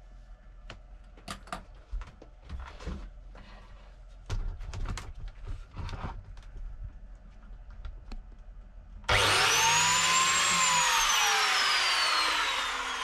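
DeWalt biscuit joiner motor switched on suddenly about nine seconds in, loud, its whine climbing briefly and then falling slowly as the motor winds down. Before that, scattered light knocks as the tool is handled against the wall.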